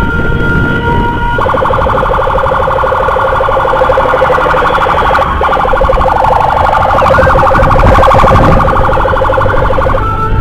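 Electronic escort siren sounding continuously, switching modes: a steady two-tone note at first, a rapid pulsing warble from about a second and a half in, with a rising-and-falling wail laid over it past the middle, and back to the steady tones near the end. Engine and road rumble run underneath.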